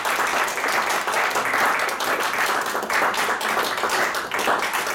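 A small audience applauding, a steady patter of many hands clapping together.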